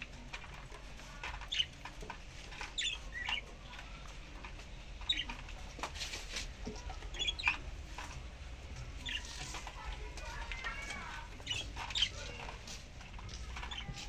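Budgerigar chirping in short, scattered calls, with a brief warbling chatter about ten to eleven seconds in.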